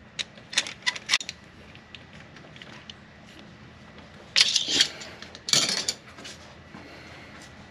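Hand tools clinking and scraping on metal while loosening a valve-lash adjuster on the cylinder head: a few sharp clicks in the first second or so, then two longer metallic rattles around the middle.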